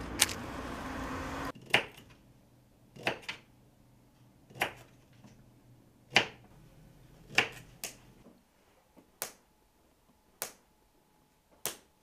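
Low steady traffic hum with one sharp click, then a kitchen knife chopping carrots on a cutting board: about ten single, sharp chops, one every second or so.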